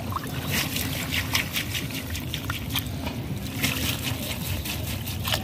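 Water splashing and trickling as a mesh fish net is lifted and moved in shallow pond water, with many small drips and splashes over a low rumble.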